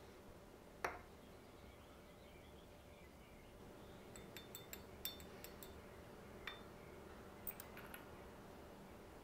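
A single sharp knock about a second in, then light clinks of a clear stirrer tapping against a martini glass as a drink is stirred, in several small groups over the second half.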